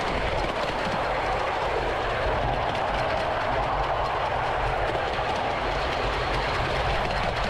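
Ride-on miniature railway train running steadily along the track, with continuous wheel and rail noise.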